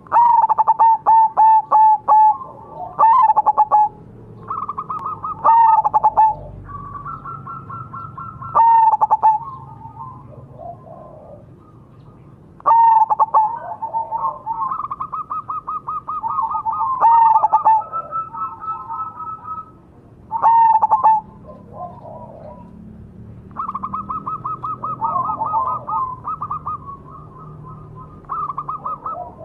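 Zebra dove (perkutut) cooing: loud, ringing coo phrases every few seconds, with quieter, fast, trilled runs of coos between them.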